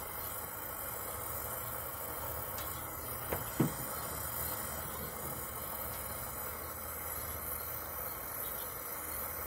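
Small brass gas torch flame hissing steadily as it brazes a leak in a refrigerator freezer's evaporator tubing, with two short knocks about three and a half seconds in.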